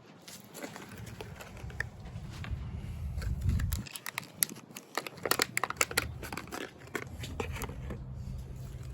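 Handling noise: rustling with scattered sharp clicks, then a quick run of clicks about five seconds in, over a low rumble.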